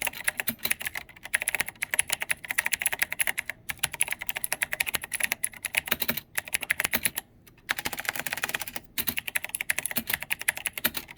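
Corsair Strafe RGB mechanical keyboard with Cherry MX Blue clicky switches being typed on rapidly: a dense stream of sharp, typewriter-like clicks with a few brief pauses.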